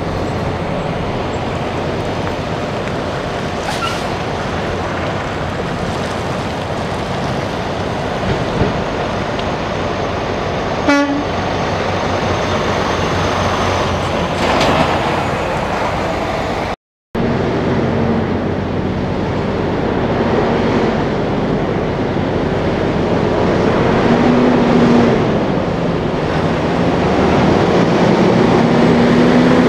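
Diesel tractor-trailers (Freightliner and Western Star semi trucks) rolling slowly past, with a steady engine and tyre noise. The sound cuts out for a moment about halfway. After that, an engine's pitch rises and falls as a truck pulls away through its gears.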